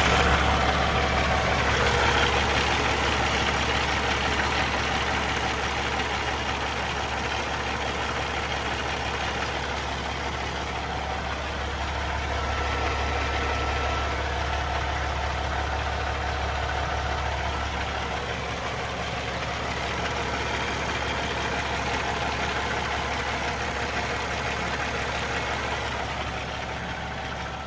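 Peterbilt 579's diesel engine idling steadily on its first run after an oil change, building oil pressure through the fresh oil and new oil filter.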